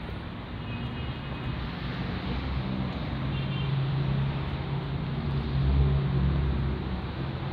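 Street traffic noise from passing cars, with one vehicle's low engine hum building through the middle and loudest about six seconds in.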